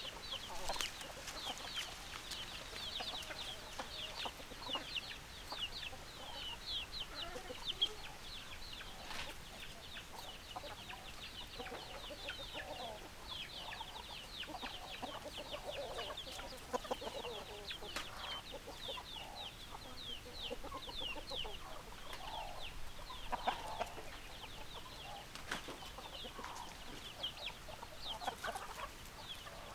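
Chickens calling: hens clucking under a constant stream of quick, high, falling peeps, with a few sharp clicks.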